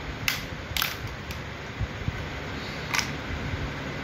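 Hard plastic action figures clacking as they are knocked together and handled: three quick sharp knocks in the first second and a half, then one more about three seconds in.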